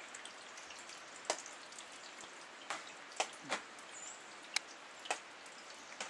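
Scattered drops falling from ice-coated trees, about seven sharp separate ticks at uneven intervals over a faint steady hiss.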